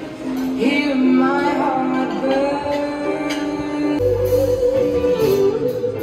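Music with a voice singing over guitar and band; about four seconds in, a strong bass line comes in suddenly.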